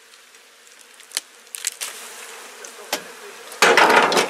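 Honeybee colony buzzing as a steady hum, with a few sharp clicks and knocks. Near the end comes a loud scraping, rustling burst as the bee-covered comb branch is shifted over the wooden hive box.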